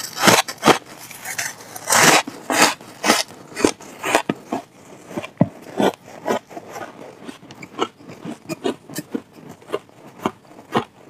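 Person biting into and chewing a lump of frost ice, its crunch strokes loudest in the first few seconds and then fainter, quicker crackles as the ice is chewed down.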